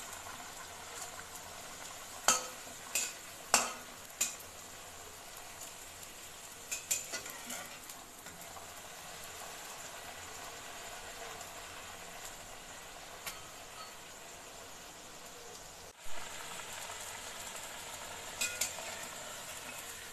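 Luchi deep-frying in hot oil in a metal kadai, a steady sizzle, with a flat metal spatula clinking and scraping against the pan several times, loudest in the first few seconds.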